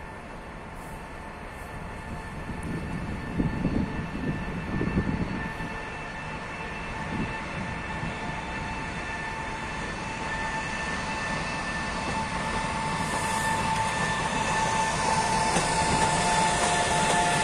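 EP20 electric locomotive and its passenger coaches arriving and rolling past. A steady whine rides over the rumble of wheels on rail, and the sound grows louder as the train draws level.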